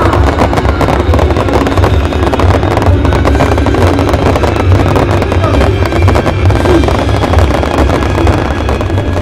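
A dense, continuous barrage of fireworks going off, rapid crackling and popping packed with bangs, over a heavy low rumble.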